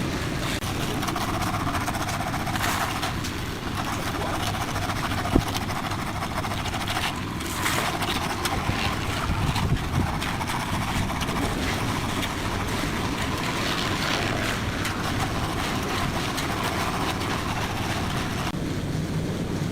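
Concrete mixer's engine running steadily, a continuous low rumble with a few brief knocks.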